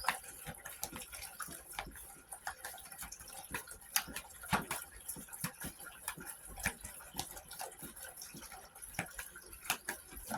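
Tarot cards being handled and shuffled: irregular light clicks and taps, several a second, some louder than others, over a faint steady hiss.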